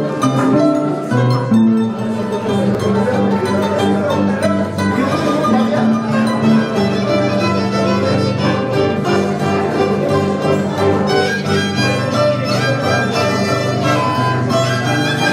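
Andean harp and violin playing a tune together: plucked harp notes under a bowed violin melody.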